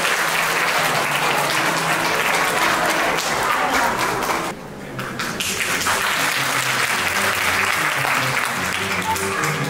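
Audience applauding over background music; the clapping thins out briefly about four and a half seconds in, then picks up again.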